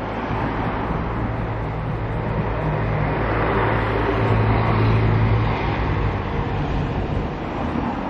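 A motor vehicle passing close by: a low engine hum and tyre noise that swell to a peak about halfway through, then fade.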